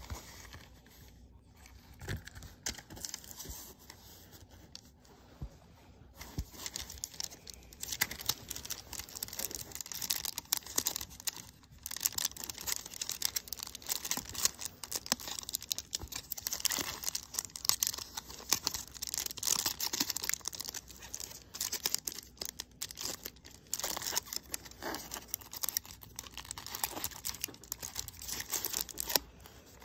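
Aluminium foil wrapper of a chocolate bar being peeled open and crumpled by hand: crinkling and tearing made of many small crackles. It is sparse and quieter at first, then steady and busy from about six seconds in.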